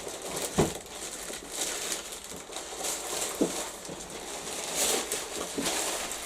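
Packaging rustling and crinkling as it is handled, with a sharp knock about half a second in and a few lighter taps later.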